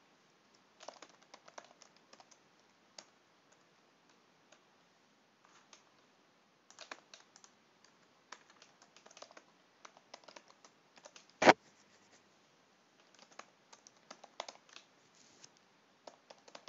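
Typing on a computer keyboard: irregular clusters of soft keystrokes, with one much louder knock about eleven and a half seconds in.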